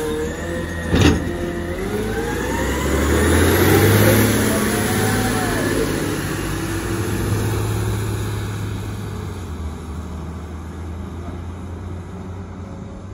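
McNeilus automated side-loader garbage truck with a natural-gas engine pulling away and driving past. The engine pitch rises as it speeds up, it is loudest about four seconds in, then fades steadily into the distance. A short sharp burst about a second in.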